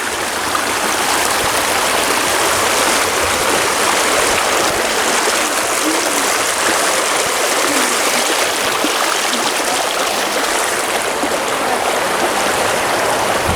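Flowing water rushing steadily and loudly, like a stream running, with no change through the whole stretch.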